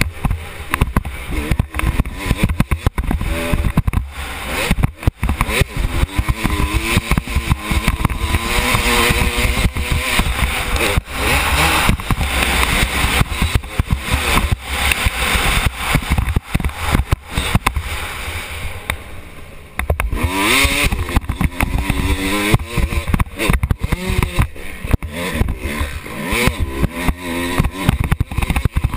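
Motocross bike engine revving up and down as the rider works through the gears, buried under constant rattling and knocking from a loosely attached helmet camera. The revs dip briefly about twenty seconds in, then climb again.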